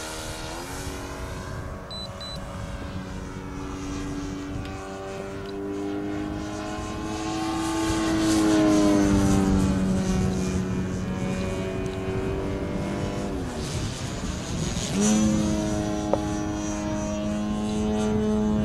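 Radio-controlled Pitts Special biplane flying overhead on a Turnigy Rotomax 50cc electric brushless motor: a pitched propeller-and-motor whine that rises and falls several times with throttle. It is loudest about eight seconds in, and its pitch jumps up sharply at about fifteen seconds.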